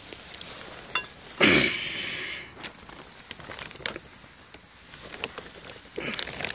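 Footsteps and rustling in dry leaf litter on the forest floor, with a louder crunching rustle about a second and a half in and another near the end.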